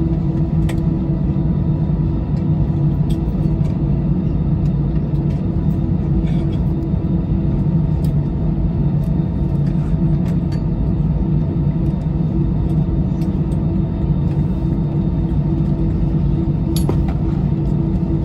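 Airbus A320-214's CFM56 jet engines running at taxi idle, heard inside the cabin over the wing: a steady low rumble with a constant hum. A few faint clicks sound over it.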